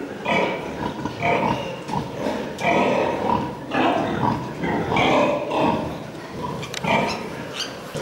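Domestic pigs grunting over and over, short rough grunts following one another every half second or so.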